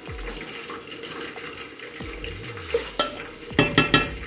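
Making ugali in an aluminium pot: a steady hiss, then near the end a quick run of sharp knocks as a metal spoon scrapes and taps stiff ugali dough off the wooden stirring stick against the pot.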